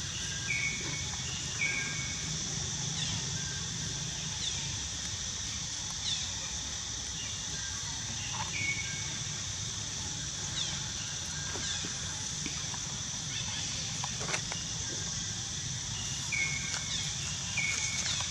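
Outdoor ambience: a steady high-pitched drone, with short high calls and quick downward chirps every second or two.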